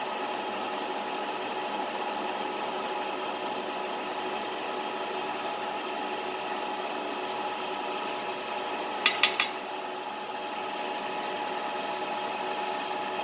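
Vertical knee mill running steadily with a constant whine while machining a slot. About nine seconds in come three sharp clicks in quick succession.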